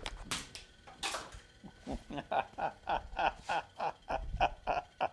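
A man laughing: a run of short, even laughs at about four a second that begins about two seconds in, after a few short sharp sounds.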